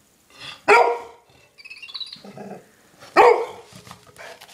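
Golden retriever barking at a toy mouse: two loud single barks about two and a half seconds apart, with fainter sounds between them.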